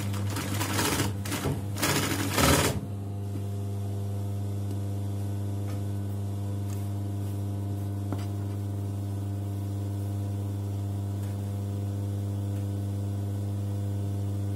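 Electric sewing machine running with a steady motor hum while stitching elastic into a skirt waistband. Loud fabric rustling and handling noise fills the first few seconds, with a few faint clicks later.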